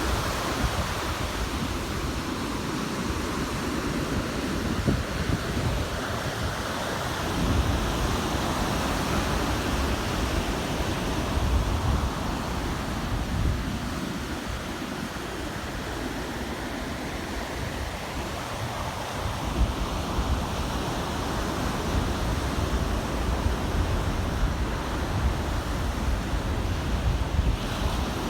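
Ocean surf washing onto a sandy beach, the waves swelling and receding, with strong wind buffeting the microphone in a low rumble.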